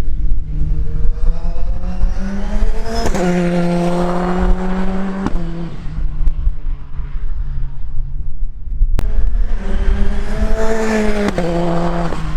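Praga R1 T race car's engine under hard acceleration: the pitch climbs, holds high for about two seconds, then drops abruptly. It builds again from about nine seconds in and breaks off sharply near the end.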